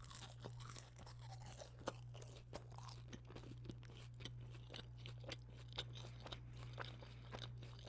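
Quiet close-up chewing of fast food, a run of small irregular crunches and mouth clicks.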